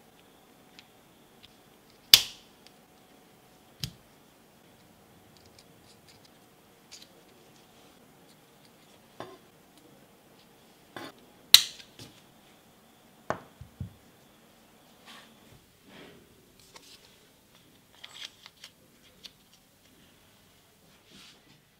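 Small metal parts of a pipe cutter being handled and fitted: scattered sharp metallic clicks and light taps, two much louder snaps about two seconds in and again near the middle, with softer ticks and scraping between.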